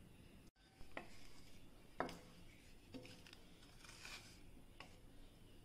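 Faint sounds of a spatula working thick pineapple jam in a stainless steel pan: a few soft clicks about a second apart.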